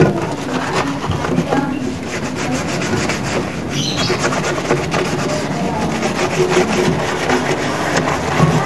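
A sponge scrubbing the sheet-metal front casing of an air conditioner's outdoor unit, a steady rough rubbing of rapid back-and-forth strokes. A single knock at the very start as the panel is set down.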